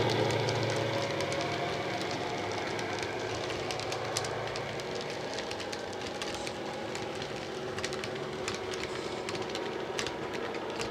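Model Class 59 diesel's engine sound from its DCC sound decoder fading as the locomotive moves away, then model wagons rolling along the track with many small wheel clicks over the rail joints.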